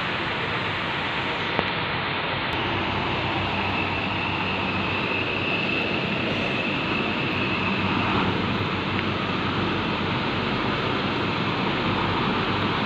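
Steady rumble of idling diesel buses, with a faint high whine for a few seconds in the middle.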